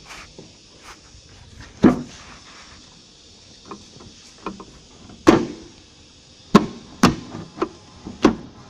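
Hard plastic knocks and taps as a GMC Yukon's tail light housing is fitted and pushed into place against the truck body, about five loud ones spread out with lighter clicks between.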